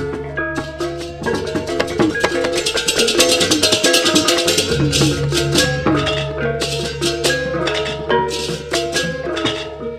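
Balinese gamelan music, the bebarongan piece named as the video's backsound: bronze metallophones in quick interlocking notes over a steady low hum, with dense cymbal clashing from about two to five seconds in.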